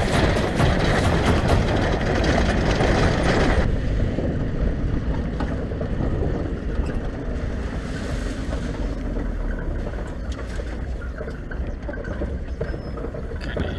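Vehicle driving on a stony dirt track, its tyres rolling over gravel amid loud, even road and wind noise. A few seconds in, this drops to a quieter, steady low rumble as heard from inside the cab.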